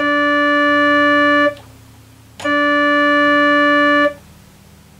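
A Casio electronic keyboard sounding the same single note twice, each held about a second and a half and cut off sharply, as a K'nex key pusher presses the key and is lifted off again.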